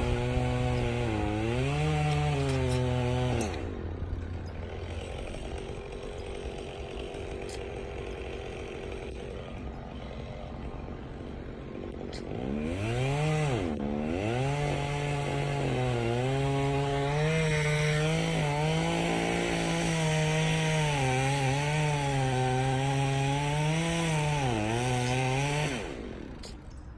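Chainsaw cutting into a burnt ponderosa pine trunk, its pitch wavering and sagging under load. It drops back to a low idle after about three seconds, revs up again near the middle with a brief dip, and cuts steadily until it drops off just before the end.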